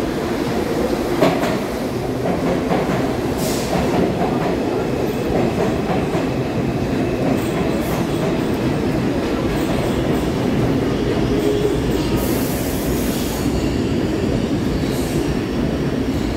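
New York City subway train of stainless-steel IRT cars pulling into the station: a steady rumble of wheels on the rails with clicks over the rail joints, and a short high hiss about twelve seconds in.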